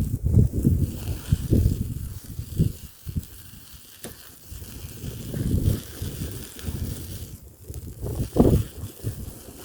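Bonfire burning in strong wind: irregular gusts rumble on the microphone, with a few sharp crackles from the fire.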